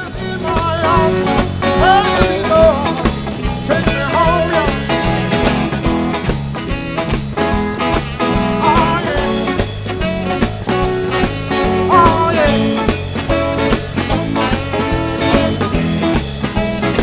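Rock music with a steady drum beat, bass and electric guitar, and a bending lead line.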